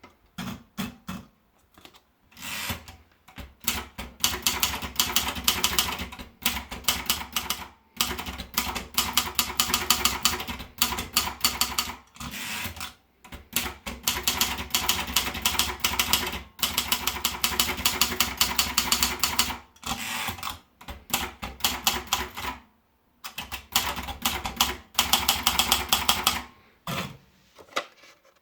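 Sperry Remington Idool typewriter being typed on: rapid runs of key strikes, each run a few seconds long, broken by short pauses.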